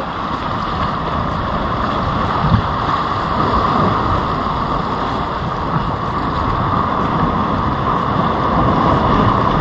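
Steady rush of wind on the microphone over sea water, with no clear change.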